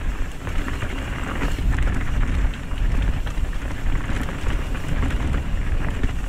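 Mountain bike rolling down a dirt singletrack trail: tyres crunching over grit and the bike rattling in quick, uneven ticks, over a low rumble of wind buffeting the microphone.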